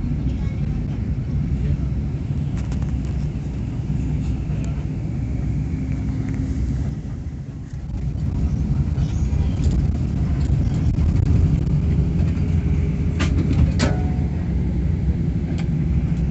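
Inside the cabin of a Mayora Trans intercity bus: steady engine and road rumble as it drives through town. The rumble dips briefly a little before halfway, then builds again. A few sharp clicks or knocks come about three-quarters of the way through.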